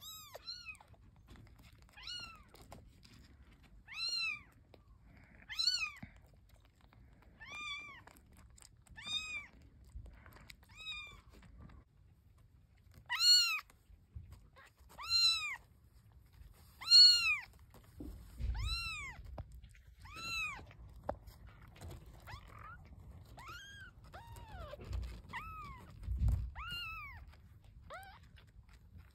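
Young kitten mewing repeatedly, short high-pitched calls about every one to two seconds, loudest around the middle. A couple of low thumps come between the calls.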